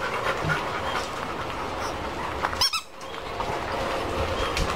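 Labrador retrievers panting in their kennel runs, over a steady background noise.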